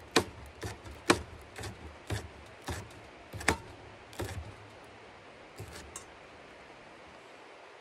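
A blade cutting up a chili pepper: a run of sharp snips or chops, roughly two a second, thinning out and stopping about six seconds in.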